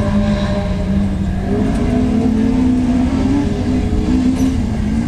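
Rally car engine running at the start line, held at raised revs: the pitch steps up about a second and a half in, holds, then drops back near the end.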